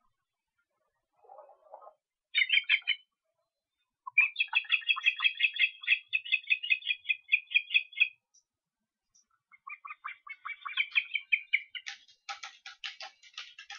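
Ospreys calling: a short burst of high chirps about two seconds in, then a fast run of piping chirps lasting about four seconds, and after a pause another run. Near the end a rapid series of sharp clicks takes over.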